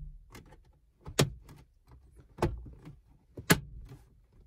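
Renault Kwid centre dash trim panel being pressed in by hand, its plastic clips snapping into place: three sharp clicks about a second apart, with fainter small clicks and rattles between.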